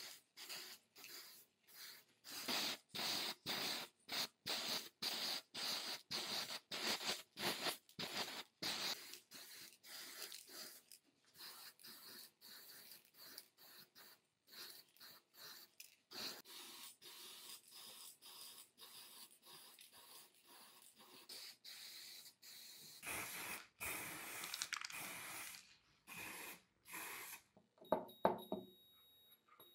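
Aerosol can spraying paint onto a drill's plastic housing, as a quick series of short hisses and then one longer spray about three-quarters of the way through.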